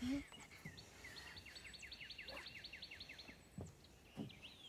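A songbird singing a trill of quick down-slurred notes, about six a second, for a little over two seconds. A brief low sound comes right at the start and two soft knocks near the end.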